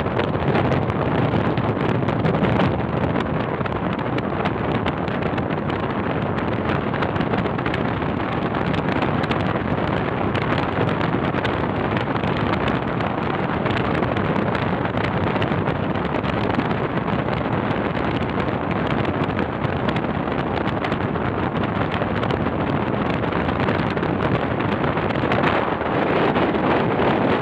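Steady rush of road and wind noise from a car driving at speed through a motorway tunnel.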